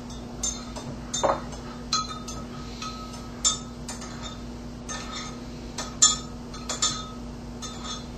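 A spoon stirring sugar into hot water, clinking irregularly against the sides of the container, a dozen or so clinks, some ringing briefly: the sugar being dissolved into a syrup.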